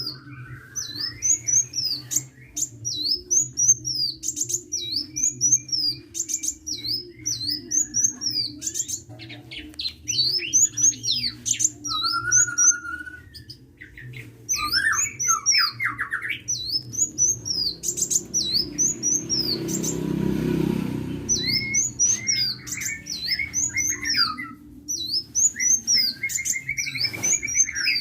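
Sunbird ('kolibri') singing busily: quick, sharp, high chirps repeated several times a second, mixed with short lower trills. A steady low hum runs underneath, and there is a brief rushing noise about two-thirds of the way through.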